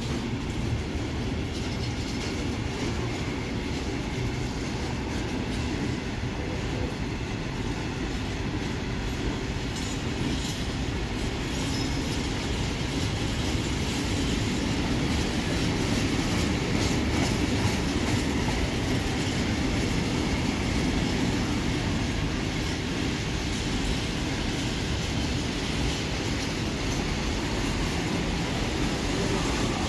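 Covered steel-coil wagons of a freight train rolling past, a steady noise of steel wheels running on the rails that swells slightly about halfway through.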